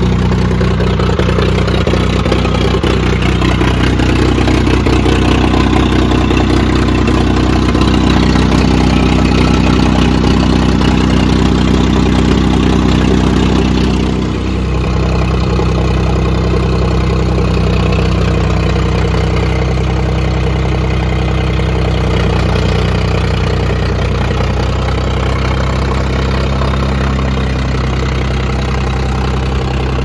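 1981 Ford backhoe's engine running steadily as the machine is driven along, with a brief dip in level about halfway through.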